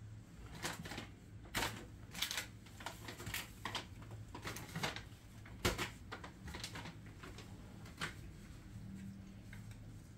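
Irregular sharp clicks and light knocks, about a dozen over the first eight seconds and then sparser, from things being handled off-camera, over a steady low hum.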